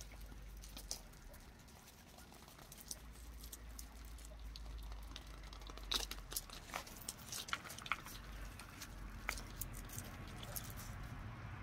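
Scattered light clicks and taps as a puppy noses and pushes small plastic toy balls about on concrete and gravel. The taps come thickest in a short run about six to eight seconds in.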